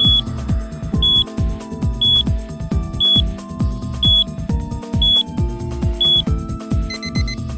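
Countdown timer beeping, one short high electronic beep each second over background music with a heavy bass beat. As the timer reaches zero, near the end, the once-a-second beep gives way to a quick run of short alarm-clock beeps.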